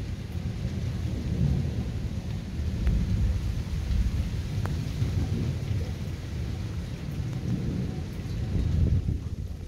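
Thunder rumbling in a long, rolling peal that swells and fades several times, loudest around three and nine seconds in, following a nearby lightning flash.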